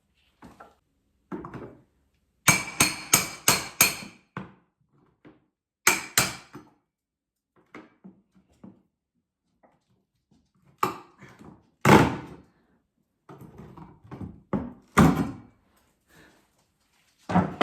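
Sharp, hammer-like knocks and thuds on something hard: a quick run of about five strikes early on, a pair a few seconds later, then a few heavier single thumps.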